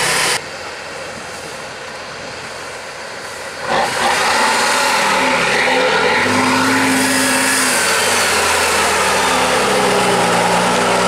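Tatra 813 8x8 trial truck's diesel engine working hard under load as it climbs a sandy slope. Its pitch rises and falls with the throttle. It is quieter for a few seconds near the start, then loud from about four seconds in.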